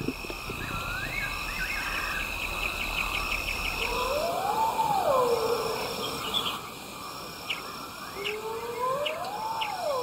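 Night bush ambience: insects trill and chirp steadily. Twice, about four seconds apart, a long call rises and then falls in pitch.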